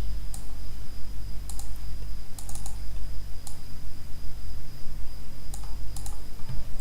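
Computer keyboard keys clicking: scattered single presses and short quick runs of a few keys, the busiest a little past the middle. Under them are a steady low hum and a thin high whine.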